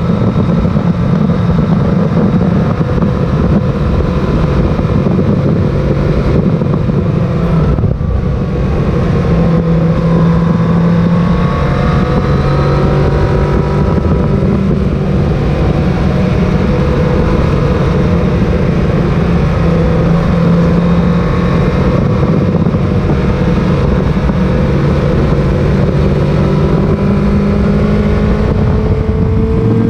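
Sport motorcycle engine running under steady throttle through curves, its pitch drifting up and down with the throttle and rising near the end, over wind noise on the microphone.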